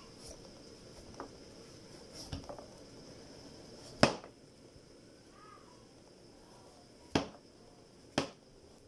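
Kitchen knife paring the peel off a large green fruit over a wooden cutting board. There are soft scraping sounds, and now and then a sharp knock as the blade hits the board. The loudest knock comes about four seconds in, and two more come near seven and eight seconds.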